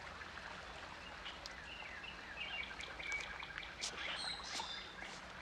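Outdoor ambience: a scattering of short bird chirps, thickest in the second half, over a steady background hiss.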